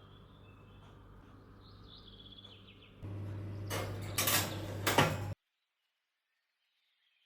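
Faint bird chirping over a low hum, then about three seconds in a louder rustling, crackling noise with three sharp cracks that cuts off abruptly.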